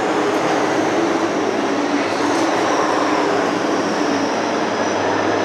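A pack of LMV8 stock cars' V8 engines at racing speed around the oval, a steady, loud drone of many engines together.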